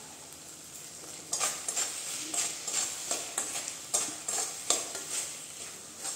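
A wooden spatula stirring and scraping rice and cabbage around a metal kadai in quick repeated strokes, about two or three a second. The strokes start about a second in, as the ground garam masala is mixed into the finished dish.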